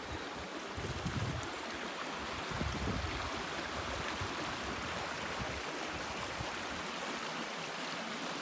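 Stream water rushing steadily over rocks, an even hiss with a few low thumps in the first few seconds.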